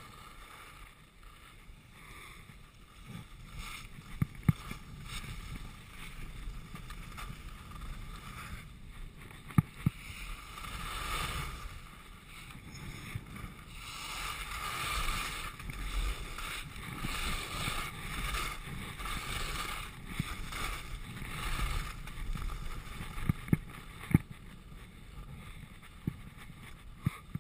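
Skis hissing and scraping over groomed snow on a downhill run, with wind rushing over the microphone; the rush swells through the middle of the run. A few sharp knocks stand out above it, in pairs about four seconds in, near ten seconds, and near the end.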